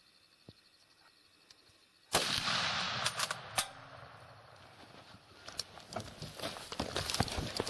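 A single shot from a .416 B&M rifle about two seconds in, its loud report hanging for nearly a second, followed by two sharp clicks. From about halfway on comes a quick run of crunching footsteps through dry brush.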